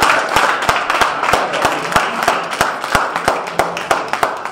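Congregation clapping and cheering: many loud, irregular sharp claps over a dense wash of applause and voices, easing slightly near the end.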